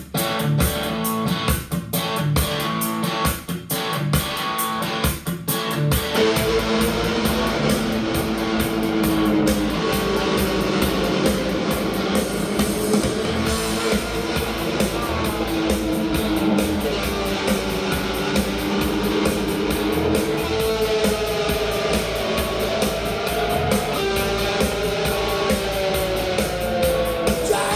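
Jazz with guitar, played back through a Harman Kardon SoundSticks 4 speaker set with subwoofer. Short clipped guitar chords for the first few seconds, then a held melody line that bends in pitch over a steady bass.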